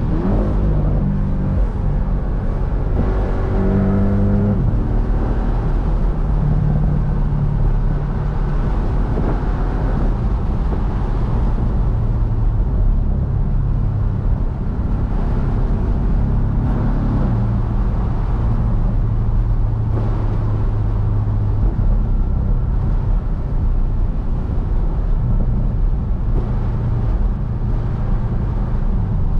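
2020 Porsche 718 Boxster base's turbocharged flat-four engine running on the move. Its note climbs about three to four seconds in, then settles into steady cruising with a few step changes in pitch, over road and wind noise from the open top.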